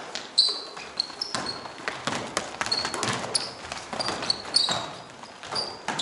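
Basketball game on an indoor court: the ball bouncing and players' feet hitting the floor in a string of sharp knocks, with repeated short high squeaks of sneakers on the court.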